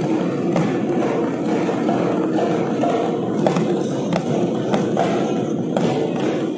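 Several Assamese Bihu dhols (double-headed barrel drums) played together as a dense rolling drumbeat, with regular sharp accented strokes a little under twice a second.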